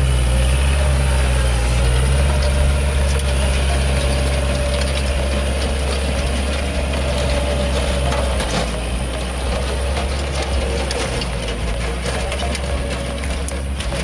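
Kubota L5018 diesel tractor running steadily, its rotary tiller churning soil with a gritty, clattering noise and scattered clicks over the engine's low drone.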